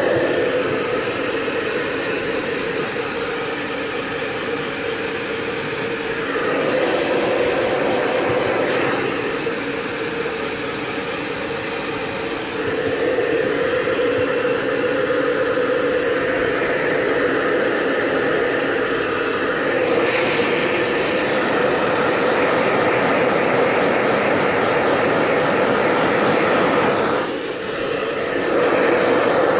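Electric blow dryer running steadily, a loud rushing of air over a constant motor hum, drying a freshly bathed dog's coat; the sound swells and dips a little every few seconds as the nozzle is moved.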